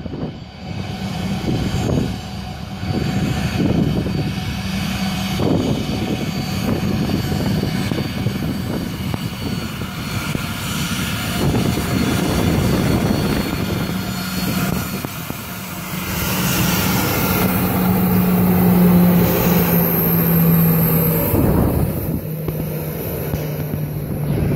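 Boeing 737-800's CFM56-7B turbofan engines running at taxi power as the airliner taxis close past: a steady jet rush with a high fan whine and a low drone. It grows louder about sixteen seconds in as the jet turns onto the runway.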